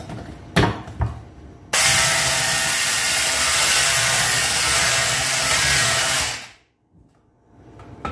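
Electric hand mixer beating cake batter in a glass bowl. A couple of knocks, then the motor runs steadily for about four and a half seconds and cuts off, winding down to quiet.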